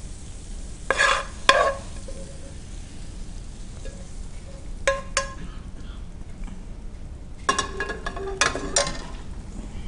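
Silicone spatula scraping sauced chicken out of a metal wok onto a plate, with short scrapes and knocks of the pan about a second in, around five seconds in and in a cluster near the end, over a steady low hum.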